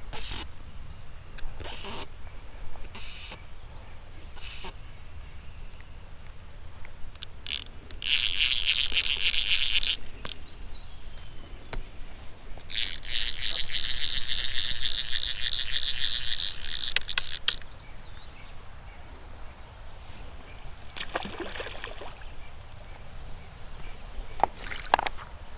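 Fly reel's click-pawl ratchet buzzing rapidly as line is wound in on a hooked trout, in two spells of about two seconds and four and a half seconds.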